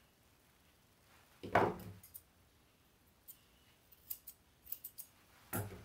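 Grooming scissors snipping the hair under a Maltese's tail: a quick run of short, sharp snips in the middle. A louder dull knock comes about a second and a half in, and another near the end.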